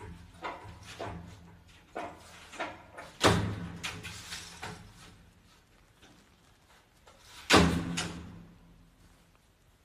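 A sliding window rattling and knocking in its frame as a cat paws and pushes at it: a run of light knocks, then two loud bangs, about three seconds in and again at about seven and a half seconds.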